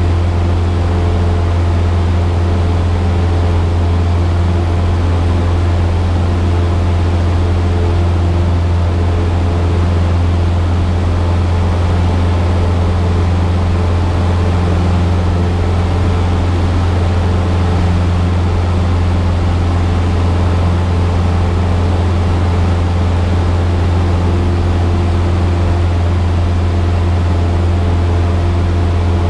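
Piston engine and propeller of a single-engine light aircraft at takeoff power, heard from inside the cabin as a loud, steady drone with a deep hum.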